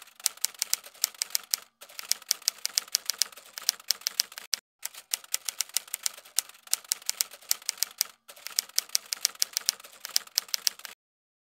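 Typewriter key-click sound effect accompanying on-screen text being typed out: rapid, even clicks, several a second, in runs with a few brief pauses, stopping abruptly near the end.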